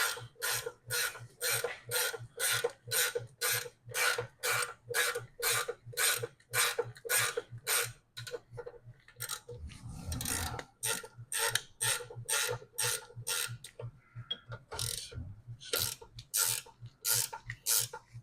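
A 14 mm ratcheting gear wrench clicking in quick back-and-forth strokes, about two to three clicks a second, as a brake caliper bolt is run in. The clicking breaks briefly for a short rub about halfway through and pauses again near the end.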